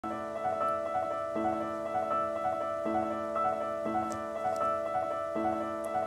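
Piano introduction to an art song for soprano and piano, played softly: a repeating upper note about twice a second over held lower notes that change every second or so.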